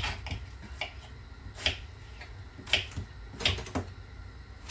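A kitchen knife cutting ash gourd into cubes, the blade knocking on the cutting board in sharp, irregular taps, about six or seven in all.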